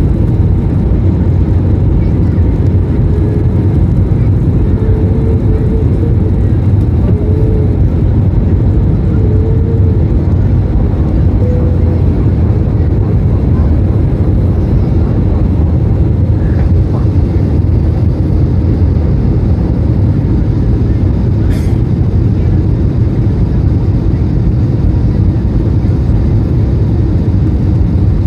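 Steady low rumble of engine and airflow noise inside an Airbus A321 passenger cabin, with a brief click about twenty seconds in.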